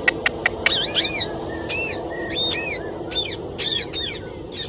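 Pet parrot calling: a few sharp clicks near the start, then a quick string of short chirping calls that rise and fall in pitch.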